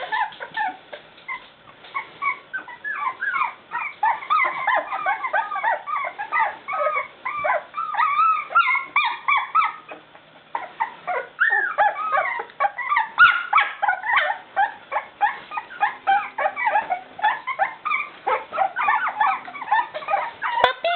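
A litter of one-month-old Chow Chow puppies whining and yipping: many short, high-pitched cries overlapping one another, with a brief lull about ten seconds in.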